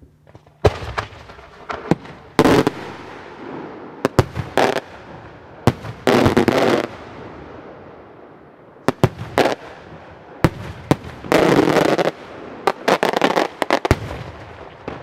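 Aerial firework shells from cylindrical mortars bursting overhead in quick succession: a dozen or so single sharp bangs, each trailing an echo, mixed with four longer crackling salvos of up to a second.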